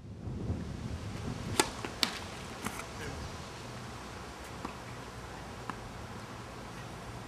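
Tennis ball being struck by rackets and bouncing on a hard court: sharp pops, the two loudest about a second and a half and two seconds in, then a few fainter ones, over a low steady background rumble.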